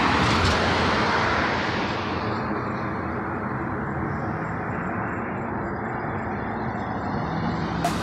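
Road traffic at night: a car passing close by, its tyre and engine noise swelling in the first second or two and then fading into a steadier low traffic hum. A short sharp click comes near the end.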